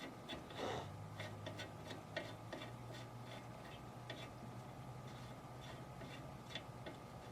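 Small clicks, about three a second at first and thinning out later, as the ATN Thor 4 thermal rifle scope's controls are worked to adjust its zero after a shot landed about 3.5 inches left. A faint low hum comes in about a second in.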